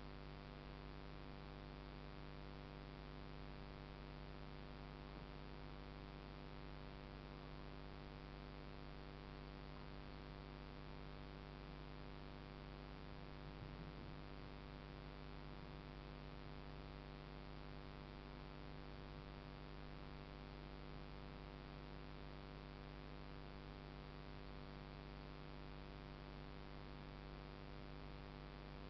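Steady, unchanging electrical hum made of many evenly spaced tones, at a low level.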